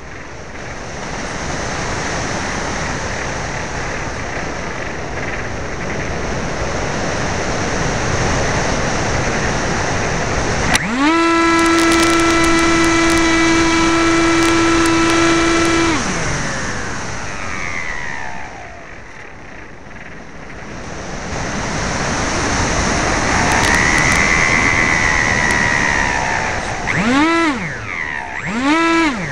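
Wind rushing over the microphone of an AXN Floater Jet's onboard camera as the electric RC plane flies. About a third of the way in, its motor and pusher propeller run up to a steady whine, hold it for about five seconds and cut off. Later the whine swells and fades once, and near the end it rises and falls twice in quick throttle blips.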